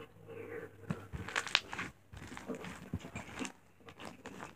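Clear slime being stretched and pulled by hand, giving a run of small crackles and pops, densest in the middle.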